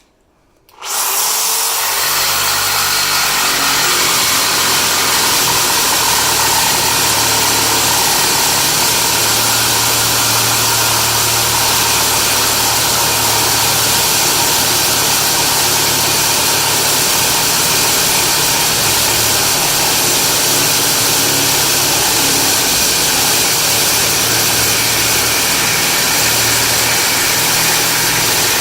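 Reciprocating saw fitted with an MK Morse CTR carbide-tipped blade cutting through a stainless steel bolt, a loud steady sawing that starts suddenly about a second in.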